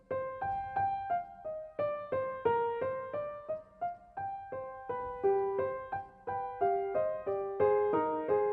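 Intro music on piano: a light melody of quick single notes, about three or four a second, each struck and fading away.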